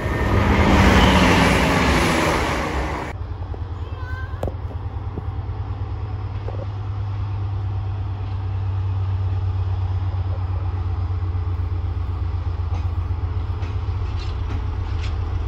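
A loud rushing pass-by, falling in pitch, fills the first three seconds. Then a diesel freight locomotive hauling tank wagons runs steadily with a low, even throb as it approaches, and a few faint clicks come near the end.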